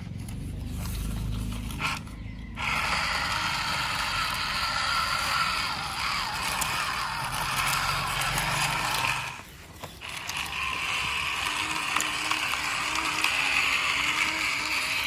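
Small electric motor and plastic gearbox of a plastic toy RC truck whirring. It starts a few seconds in, stops briefly about two-thirds of the way through, then starts again.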